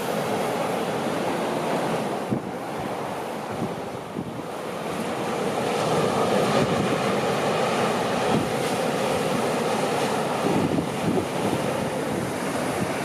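North Sea surf breaking and washing up the beach around a wooden groyne and rocks. The wash dips briefly about four seconds in, then swells again.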